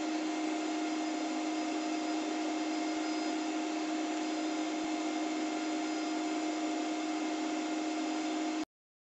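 CNC PCB milling machine milling a copper-clad board: the spindle and the extraction hose's suction run together as a steady whine with two constant tones over a hiss. It stops abruptly near the end.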